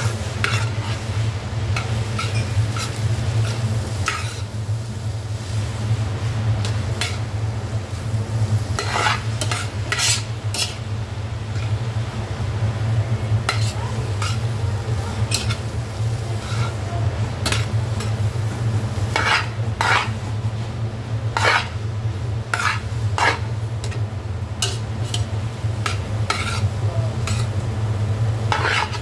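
Spaghetti and vegetables sizzling as they are stir-fried and tossed in a large stainless steel pot with a metal utensil. Irregular clinks and scrapes of metal against the pot run over a steady low hum.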